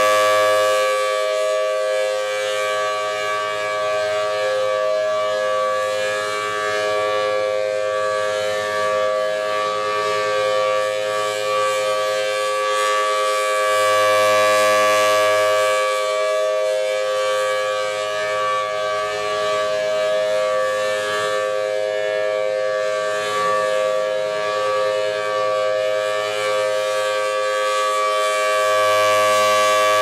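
Federal Signal Thunderbolt 1003 mechanical civil-defense siren sounding a steady alert tone as its horn rotates. The tone holds one pitch and swells louder each time the horn swings round to face the listener: near the start, about halfway through and again near the end.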